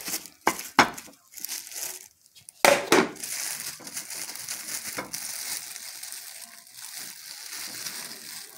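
Plastic bag lining crinkling and rustling as it is peeled off a molded dome of rice, with a few sharp knocks in the first three seconds as the upturned bowl is handled and lifted off the plate.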